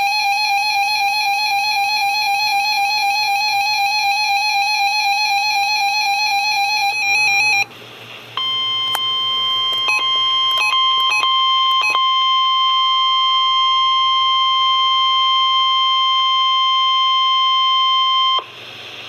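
Weather radio receiver playing NOAA Weather Radio alert tones for a required weekly test. First comes a rapidly warbling electronic alarm tone for about seven and a half seconds. After a short break the steady 1050 Hz warning alarm tone sounds for about ten seconds, briefly interrupted a few times near its start; this tone triggers tone-alert receivers.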